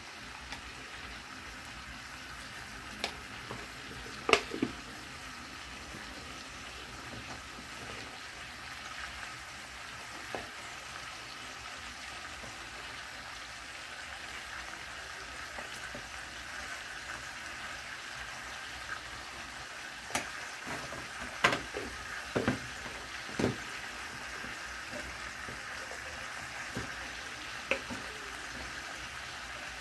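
Chicken pieces and tomato frying in oil in a wok, a steady sizzle. A few sharp clicks and taps come now and then, several close together about two-thirds of the way through.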